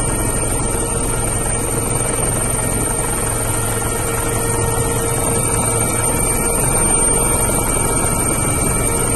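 Helicopter running steadily in flight, heard from aboard: an even rushing noise over a constant low hum and a steady mid-pitched tone.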